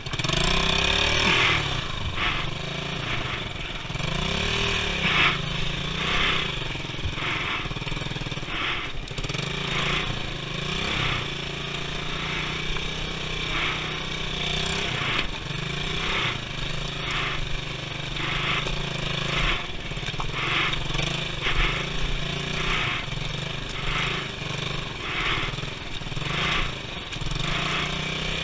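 Motorcycle engine running under load in a low gear, its pitch rising and falling with the throttle as the bike works through deep mud, with rough bursts of noise about once or twice a second.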